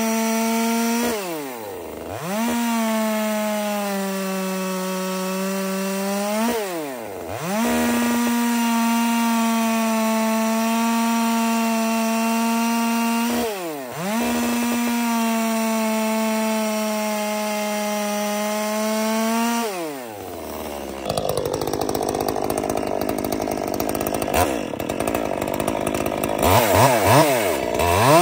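Top-handle chainsaw running at full throttle, cutting into hardwood log rounds. Four times the pitch sinks and climbs back as the throttle is let off and squeezed again. For the last several seconds the sound is rougher and noisier, and the level jumps up and down.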